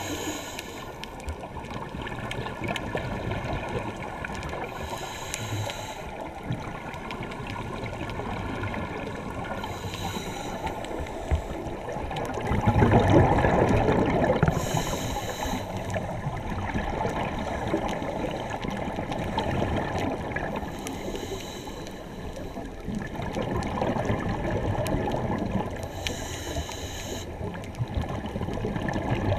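Underwater sound of scuba breathing through a demand regulator, heard through a camera housing: a regular hissing rush of breath and exhaled bubbles about every five seconds over a steady murky water noise, with a louder gurgling surge of bubbles about thirteen seconds in.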